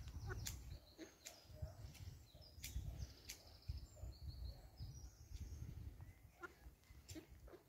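Faint, short high peeps of ducklings scattered through, over a gusty low rumble of wind on the microphone.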